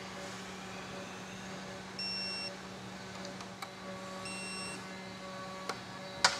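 Digital torque wrench beeping twice, each a short high beep about two seconds apart, as the clutch cover bolts reach the 10 N·m target torque. A few sharp clicks of the wrench and socket come in between and near the end, over a steady low hum.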